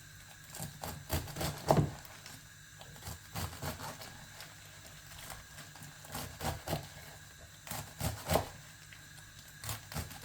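Knife chopping calaloo leaves on a cutting board: irregular sharp taps, in small clusters with pauses between.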